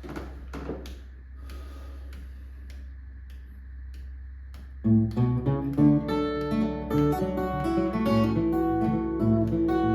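An acoustic guitar starts playing the song's intro suddenly about five seconds in, with separate plucked and strummed notes. Before it there is only faint room noise with a few soft clicks over a steady low hum.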